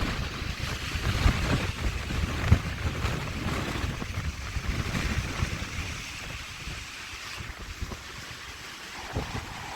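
Strong gusty wind rushing with a steady hiss, buffeting the microphone with irregular low thumps. The gust is strongest early on and eases about two thirds of the way through.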